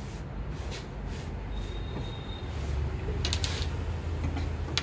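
Hands brushing and smoothing cloth flat on a cutting table in a few short swishes, then a wooden tailor's L-square picked up with a brief clatter a little past three seconds in, over a steady low hum.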